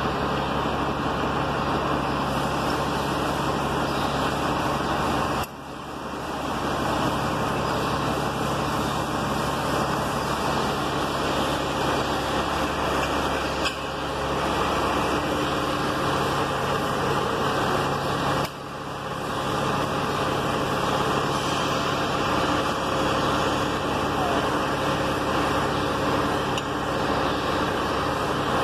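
An engine running steadily. Its sound drops away suddenly twice and builds back up within a second.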